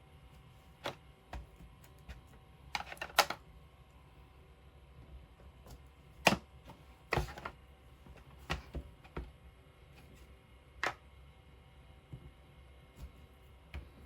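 Irregular taps and clicks of a feather stamp being pressed onto an ink pad and onto a paper layout on a craft desk. There is a quick cluster about three seconds in and single knocks spread through the rest.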